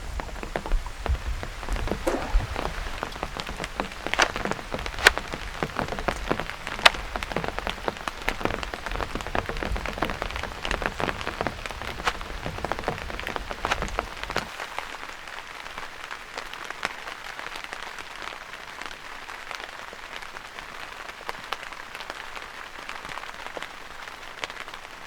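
Heavy rain falling, with many individual drops striking a surface close by. A low rumble underneath cuts off suddenly about halfway through, leaving the rain a little softer.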